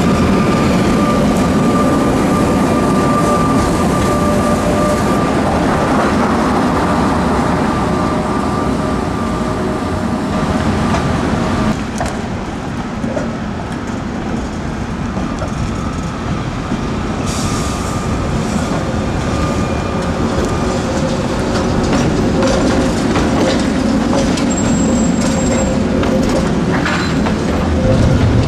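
Tram running close by on its rails, with a rumble and a steady high tone, for about twelve seconds. Then city street traffic: cars passing at an intersection, with a tram moving off at the side.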